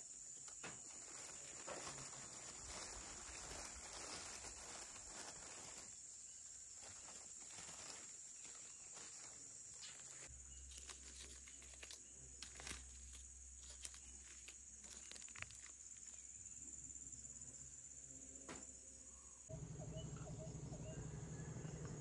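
Faint outdoor rural ambience: a steady high-pitched insect drone, with scattered light taps and rustles. Near the end a low steady hum comes in.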